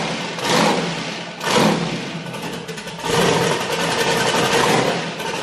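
Pontiac Trans Am drag car's LS V8 running loudly just after start-up, swelling several times as the throttle is blipped, with a longer rise of a couple of seconds near the middle: a check of its idle and throttle response after a new throttle cable was fitted.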